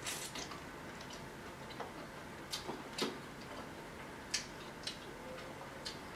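Close-up eating sounds of crab and shrimp: irregular sharp clicks from chewing and from pulling meat out of the shell, about eight in all, the loudest near the start and about three and four seconds in.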